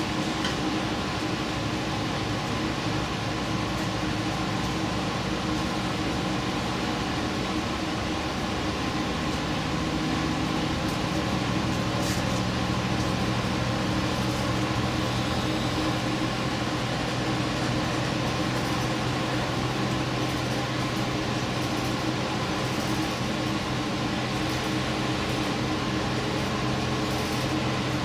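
Steady running noise heard from inside a diesel limited-express train travelling along the line: an even drone of engine and rolling noise. About ten seconds in, a low engine tone rises and settles a little higher.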